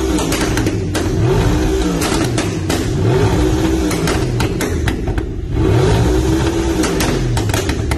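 Audi R8 engine with a decat exhaust, revved repeatedly while stationary. Each blip rises and falls in pitch, and the exhaust pops and crackles as the revs drop, from the removed catalytic converters and the Stage 1 tune. There is a short pause about five seconds in before another rev.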